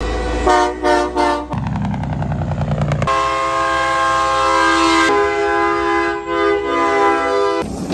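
Semi-truck air horns blowing: three quick toots, a low diesel engine rumble, then long blasts sounding several notes at once, shifting to a different chord partway through and cutting off near the end.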